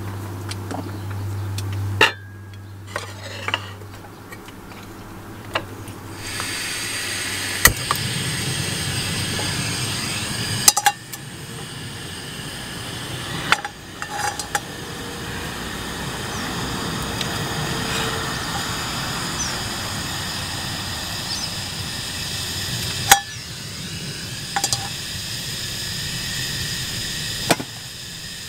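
Portable gas camping stove burner lit and hissing steadily from a few seconds in, with sharp metal clicks and clinks of a frying pan and stove parts being handled several times.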